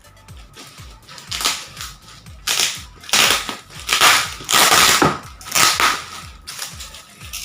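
Plastic packaging wrap being pulled off and crinkled by hand in a run of loud rustling, crackling bursts, loudest in the middle.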